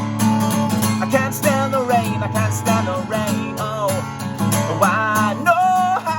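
A song with strummed acoustic guitar chords under a melody line that bends and wavers in pitch.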